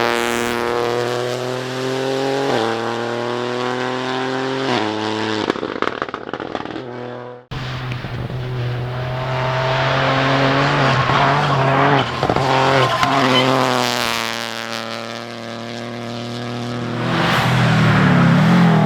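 Rally car engines at full throttle, the pitch climbing and then dropping at each upshift. About seven seconds in, the sound cuts off sharply and another rally car takes over, shifting through its gears and growing loudest near the end as it comes close.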